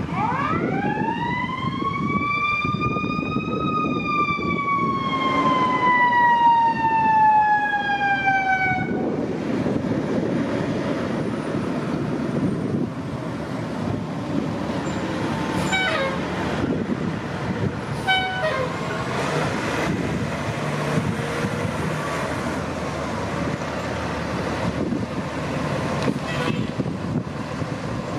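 Fire engine siren winding up, then sliding slowly down and cutting off about nine seconds in, over the steady engine and road noise of passing fire trucks. Two short falling siren chirps follow a few seconds apart.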